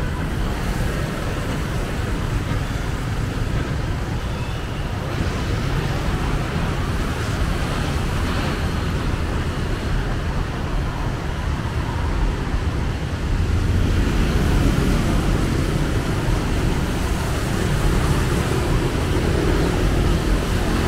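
Continuous street traffic noise from passing road vehicles, a steady rumble that grows a little louder about two-thirds of the way through.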